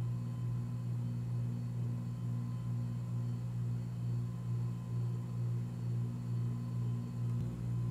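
Steady low hum that swells and fades about twice a second, with faint steady whine tones above it.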